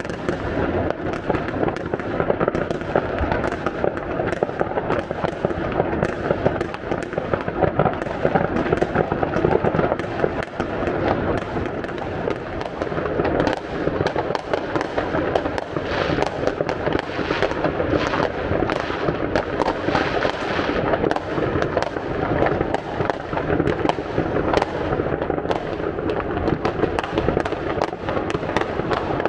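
Mass New Year's Eve fireworks: countless rockets and firecrackers going off at once, a continuous din of overlapping bangs and crackles with no pause.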